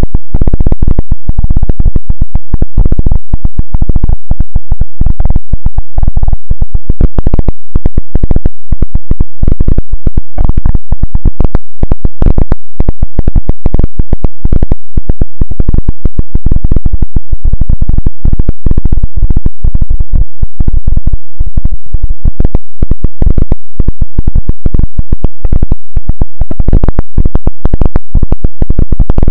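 Harsh, heavily distorted noise at full volume, made of dense, irregular crackling pulses that are strongest in the low end.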